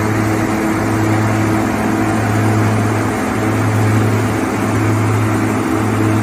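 OXBO green bean harvester running steadily, its engine and machinery giving a constant low hum with several steady higher tones over it.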